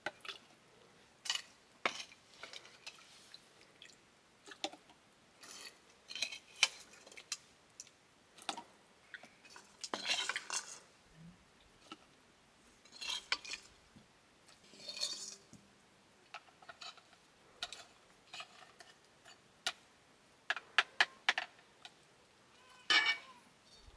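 Steel ladle scraping and clinking against a black iron wok as fat is ladled out of it, in short irregular scrapes and clicks with quiet pauses between them. A quick run of sharp clinks comes near the end.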